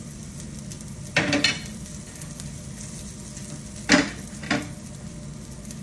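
Minced garlic frying in grapeseed oil in a cast-iron skillet, a steady sizzle. Sharp clatters of kitchen utensils come about a second in and again about four seconds in, the second the loudest.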